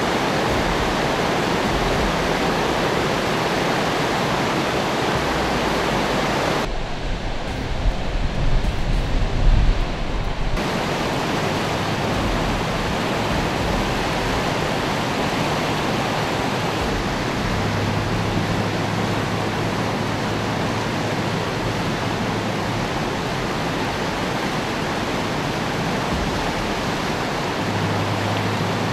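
Flash-flood torrent of muddy water rushing and churning, a steady noise of fast water. Between about 7 and 10 seconds the sound turns duller, with a few low thumps.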